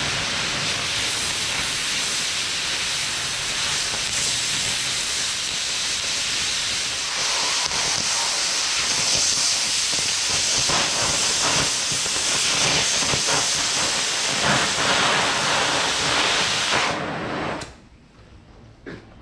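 Hand-held oxy-fuel cutting torch cutting through the thick steel side plate of a front-end loader bucket: a steady hissing jet that gets louder and crackles about seven seconds in, then cuts off abruptly near the end.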